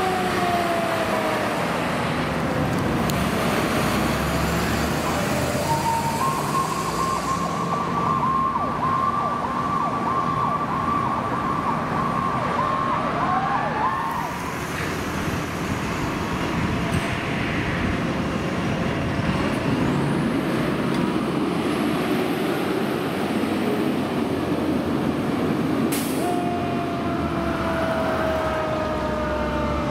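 E-One fire engines responding with sirens over heavy truck engine and road noise: a siren wail falls in pitch at the start, a high tone with a fast warble holds for several seconds, and another siren wail winds down near the end.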